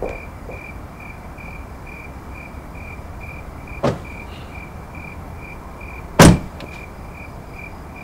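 Crickets chirping steadily at night, about three chirps a second. Car doors thud shut twice: a lighter one about four seconds in and a loud one just after six seconds.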